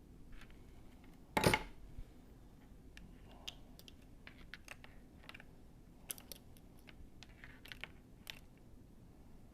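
Wire cutters and wire being handled on a work surface: scattered light clicks and taps, with one louder sharp snap about one and a half seconds in.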